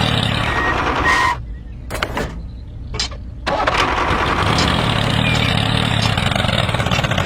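Engine-like running with a rattly low drone. It cuts out a little over a second in for about two seconds, with a few sharp clicks in the gap, then runs again.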